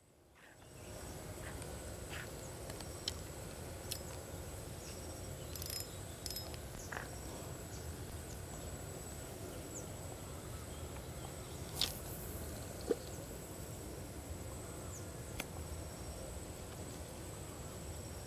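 Outdoor riverside ambience: a steady high-pitched insect trill over a low, even rumble, with a few small clicks and ticks scattered through.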